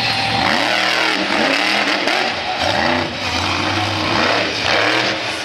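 Monster truck engine revved hard in several quick blips, each one rising and falling in pitch.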